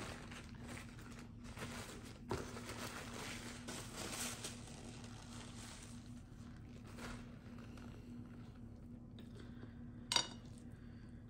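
Close-up table noises of a meal being eaten by hand: rustling and crunching handling of food and packaging, a knock about two seconds in, and one sharp ringing clink of something hard about ten seconds in.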